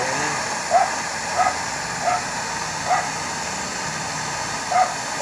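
A dog barking repeatedly, about six short barks at uneven gaps, over the steady hiss of a butane torch flame.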